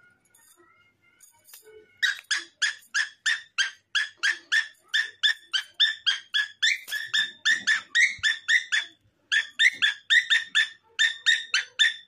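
A pet parrot calling in a fast, even run of short, sharp, identical notes, about four a second, starting about two seconds in with a short break about nine seconds in.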